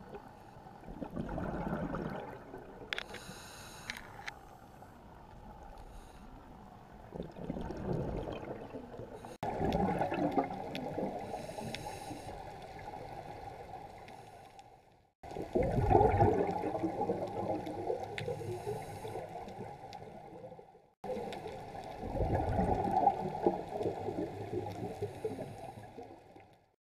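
Underwater recording of a scuba diver breathing through a regulator: exhaled bubbles rumble out in surges every few seconds, with a short hiss of inhalation between. The sound cuts off abruptly a few times and resumes.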